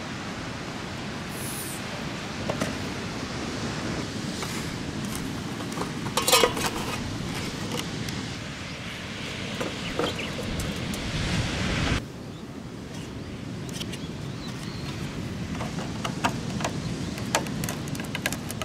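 Steady rushing of sea surf and wind, with scattered clicks and knocks from plastic rain gutters and a metal pipe elbow being handled. The loudest knock comes about six seconds in. The rushing drops to a quieter level about two-thirds of the way through.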